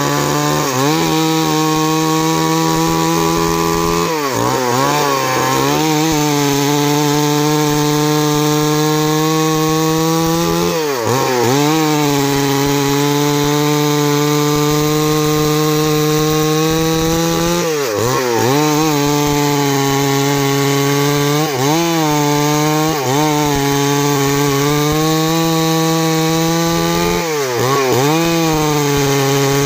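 Stihl MS 382 two-stroke chainsaw running at full throttle with its bar buried in a large tree trunk. The engine pitch briefly sags and climbs back about six times as the chain bogs down in the cut and recovers.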